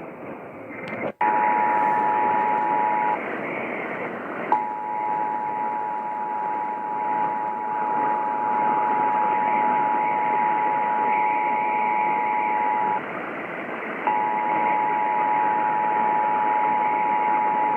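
Emergency Alert System two-tone attention signal (853 and 960 Hz sounded together) heard over an AM-radio-like hiss, announcing a Required Monthly Test. It starts after a sharp click about a second in and breaks off twice for a second or so before resuming.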